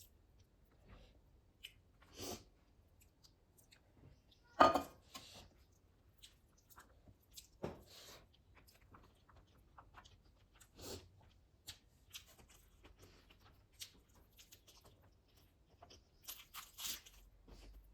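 Close-up eating sounds of a meal of chicken biryani with salad: scattered crunching bites and chewing, with some tearing of the food. The loudest crunch comes about four and a half seconds in, and a quick run of them near the end.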